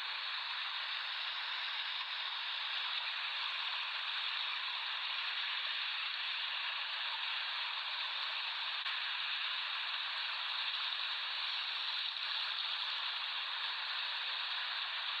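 Ocean surf heard as a steady, even hiss, with no single wave breaking out of the wash.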